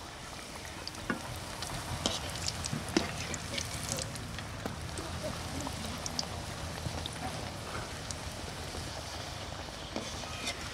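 Pieces of egg snack deep-frying in hot oil in an iron wok, a steady sizzle with scattered pops and crackles, busiest in the first few seconds.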